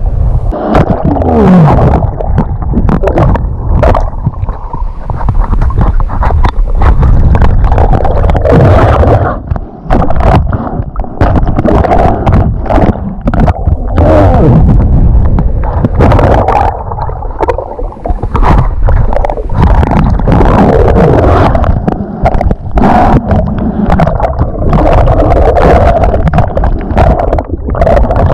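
Water gurgling and sloshing around a camera in the surf, with a steady muffled rumble and many small crackles and knocks.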